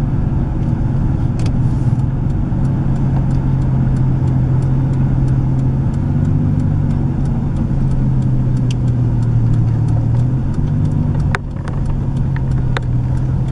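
Car engine and tyre noise heard from inside the cabin while driving: a steady low drone that shifts in pitch a few times and dips briefly near the end. Scattered light clicks run through it.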